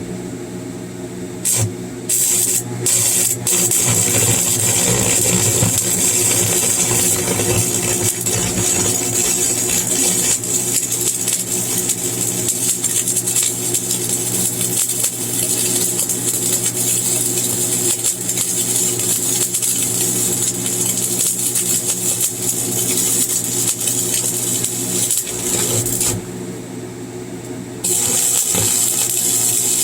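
Stick (arc) welding with a 7018 rod: the arc catches in a few short sputters, then crackles and hisses steadily over the welding machine's hum. It breaks off for about two seconds near the end and then restarts.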